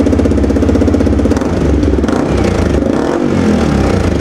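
Yamaha R15M's 155 cc single-cylinder engine idling through a full-system Akrapovic exhaust, with the muffler and its dB killer held onto the bend pipe by hand. The idle is steady and settled, which the owner calls calm ("shaant").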